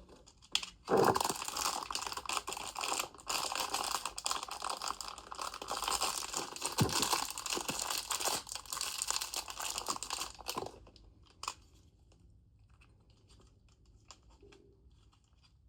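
Packaging being torn open and handled, a dense run of tearing and rustling with small clicks that stops about ten seconds in, leaving only a few faint handling clicks.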